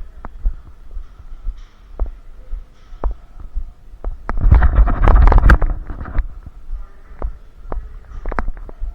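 Low thuds recurring about twice a second, typical of footsteps picked up by a body-worn camera. About four seconds in comes a loud burst of dense rustling and clattering that lasts about a second and a half.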